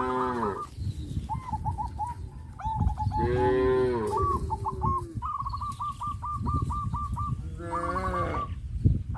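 Cows mooing: one call tails off just as the sound begins, a longer moo comes about three seconds in, and a shorter one near the end. Between the moos a bird gives runs of short, quick, repeated calls, over a low steady rumble.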